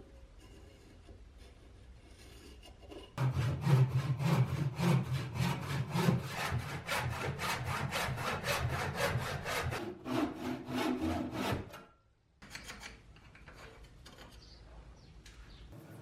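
A hand tool rubbing and scraping on a wooden hatchet handle in fast, even back-and-forth strokes, about four a second. The strokes start about three seconds in, stop about twelve seconds in, and give way to fainter, irregular rubbing.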